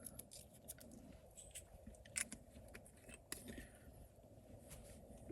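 Faint, irregular small clicks and light scrapes from black pepper being added to a plated steak, over a faint steady hum.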